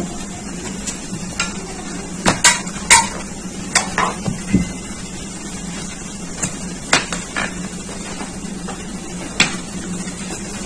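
Kitchen knife slicing a cucumber on a plastic cutting board: irregular sharp knocks of the blade striking the board, about a dozen, most of them in the first half.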